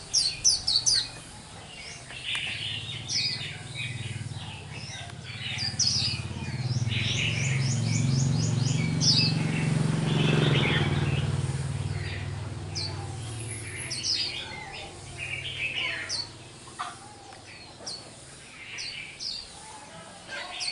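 Young white-eye (khuyên mộc) singing in short bursts of high, rapid chirps and trills, its 'líu xù đầu' song still broken up and not yet full. A low rumble swells in the middle and fades away again.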